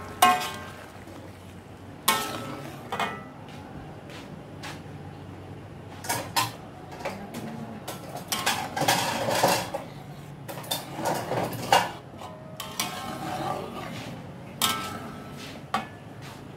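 Metal spatula clinking and scraping against a metal wok while stirring a thick sauce: a sharp clink every second or two with a brief ring, and a busier stretch of scraping about nine seconds in.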